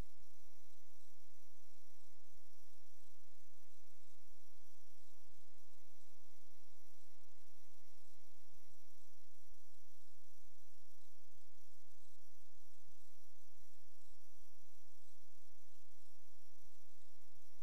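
Steady electrical mains hum with a stack of buzzing overtones and a thin high-pitched whine above it, unchanging throughout.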